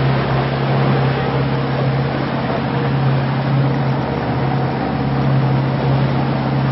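A small motorboat's engine running steadily under way: a constant low drone with a steady hiss over it.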